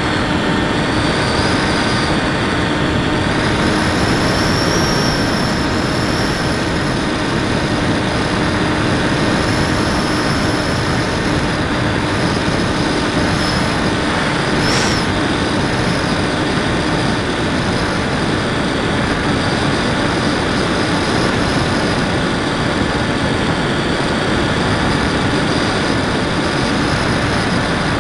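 Onboard sound of an FPV model plane in flight: steady rushing airflow over the airframe, with the motor and propeller whining at a high pitch that drifts slightly with throttle. A brief sharp high chirp comes about halfway through.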